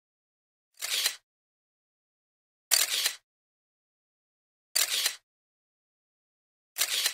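Short bursts of hissing noise, each about half a second long, repeating about every two seconds with dead silence between: a transition sound effect laid over a photo slideshow.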